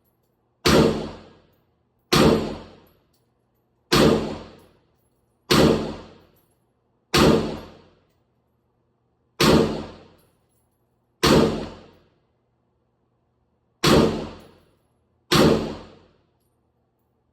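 IWI Galil ACE Gen 1 rifle in 5.56 NATO firing nine single shots at a slow, deliberate pace, about one every one and a half to two and a half seconds, each a sharp crack with a short decaying tail.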